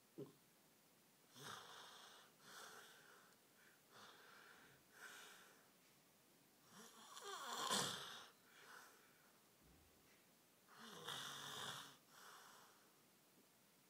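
Faint snoring from a sleeper: a string of breathy snores about a second long each, with one louder snore with a falling rasp near the middle. A short click comes right at the start.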